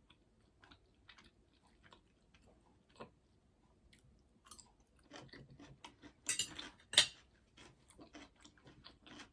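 Close-up chewing of a bite of cucumber and tomato: soft, wet crunches and mouth clicks, with a louder run of crunching about two-thirds of the way through.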